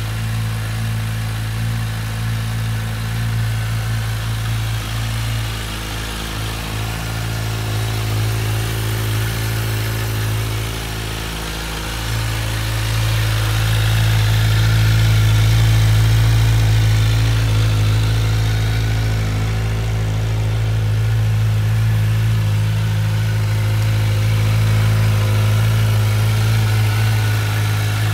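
Kawasaki Z1000SX inline-four engine idling steadily through an Akrapovic slip-on exhaust, with no revving, a little louder from about twelve seconds in.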